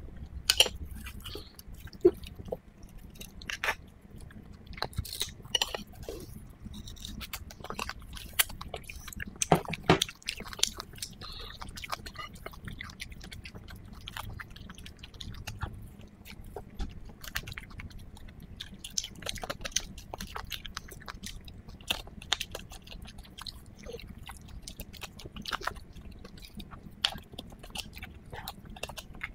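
A person chewing and biting braised marrow-bone meat close to the microphone: wet smacks and irregular sharp clicks, with scraping as a stick digs into the hollow of the bone.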